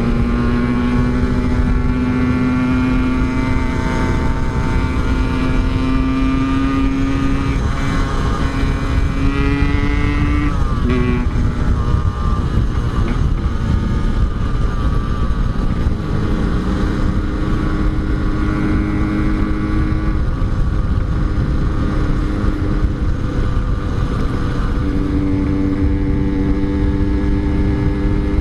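Yamaha RX-King's two-stroke single-cylinder engine running under way, its note climbing for about the first ten seconds, falling sharply as a gear changes, then holding fairly steady, over a constant rush of wind noise.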